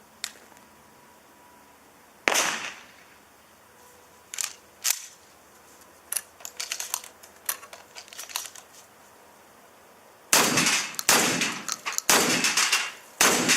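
Shotgun shots: one about two seconds in, then lighter clicks and clacks, then a quick string of four shots about a second apart near the end.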